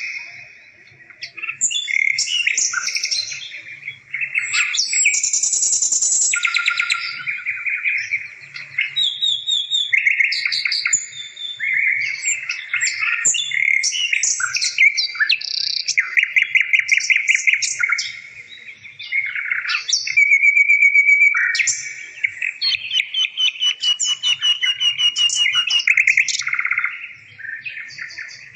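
A songbird singing almost without pause: long runs of quick chirps and rapid trills, with short breaks every few seconds.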